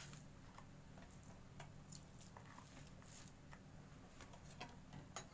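Near silence: a few faint, scattered ticks of fingers mashing crumbled paneer in a plastic bowl, over a low steady hum.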